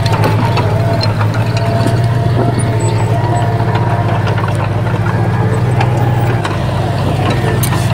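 Diesel engine of heavy earthmoving machinery running steadily, with scattered short knocks and clanks over it.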